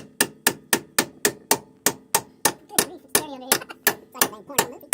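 Rapid, evenly spaced hammer blows on metal, about four a second, each with a short metallic ring.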